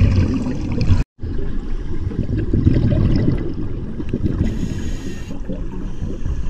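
A scuba diver's breathing heard underwater through the regulator: exhaled bubbles rumbling and gurgling, with a brief high hiss of an inhalation about four and a half seconds in. The sound cuts out for a moment about a second in.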